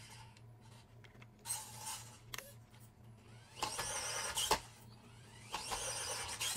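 Small electric motor and geared drivetrain of an FMS FCX24 1/24-scale RC crawler whining in three short throttle bursts as it strains up a steep incline with little tire grip.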